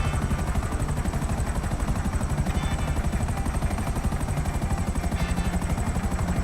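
Small remote-control helicopter in flight, its rotor and motor whirring with a fast, even chop.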